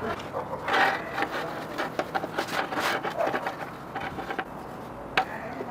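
Irregular scraping, rubbing and clicking from objects being handled, with one sharp click about five seconds in.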